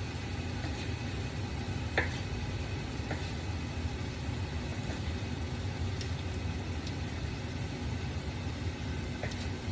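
Steady low mechanical hum of a running kitchen appliance, with a few light knife taps on a cutting board, the clearest about two seconds in.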